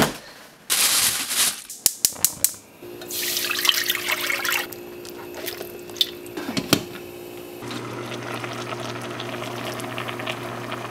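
Kitchen tap running water in short spells, with a few sharp clicks and knocks of kitchen handling; from about eight seconds in a steady low hum joins.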